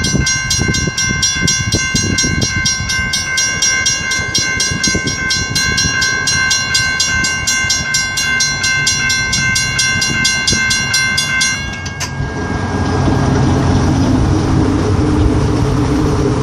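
Railroad grade-crossing warning bell ringing with rapid, evenly repeated strikes, cutting off abruptly about three-quarters of the way through. After it stops, the engine of a Chevrolet Silverado hi-rail pickup runs with a low hum, with wind rumbling on the microphone throughout.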